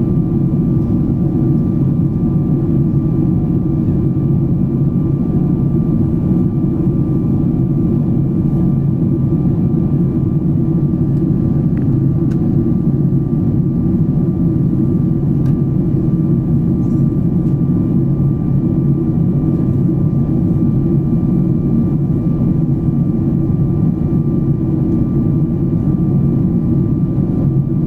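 Jet airliner cabin noise during the climb after takeoff: a steady low rumble of engines and airflow, with a faint steady whine above it.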